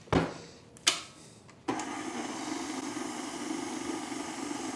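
Electric tilt-head stand mixer with a paddle attachment switched on and running at a steady hum, beating an egg yolk into creamed butter and sugar. Two short clicks come just before the motor starts, about one and a half seconds in.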